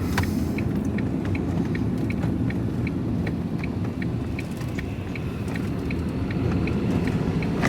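Steady engine and road rumble inside a moving van's cabin, with the turn indicator ticking evenly, about three ticks a second, ahead of a left turn.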